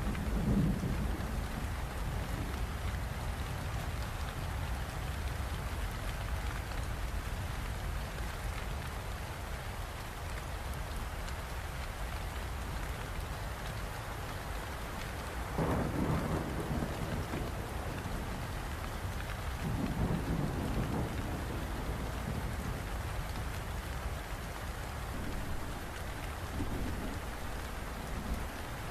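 Steady heavy rain with a low background rumble. Thunder rolls through, swelling about halfway through and again a few seconds later.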